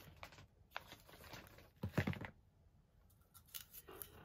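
Plastic wax-melt packaging handled by hand: a stand-up pouch and a small clear plastic pot rustling and clicking in the fingers, with a louder thump about two seconds in as something is set down on the table.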